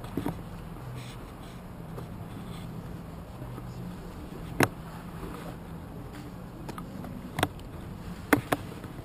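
Backpack camera rig clicking and knocking as the wearer walks, a few sharp knocks spread unevenly with a small cluster near the end, over a steady low hum.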